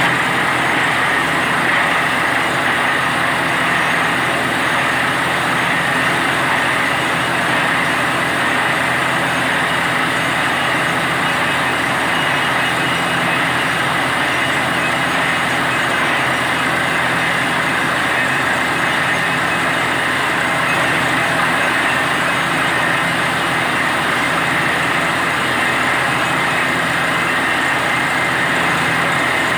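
Truck-mounted borewell drilling rig running steadily while drilling: a continuous engine drone under a steady hiss of air and water blasting out of the bore around the drill pipe.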